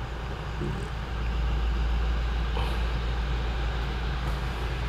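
Toyota Fortuner's four-cylinder turbodiesel engine idling steadily, heard from inside the cabin as a low rumble that rises slightly about a second in.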